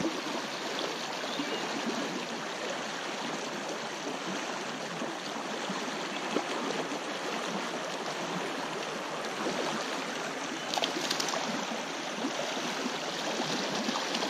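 Shallow creek riffle rushing steadily over rocks, a continuous even wash of moving water. A few brief clicks come through about eleven seconds in.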